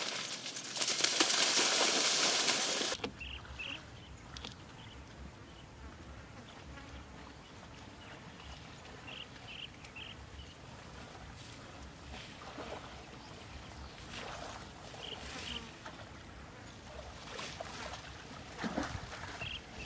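Outdoor pond ambience: water buffalo wading through shallow muddy water, with a few splashes, and short high chirps here and there. A loud hiss fills the first three seconds and cuts off abruptly.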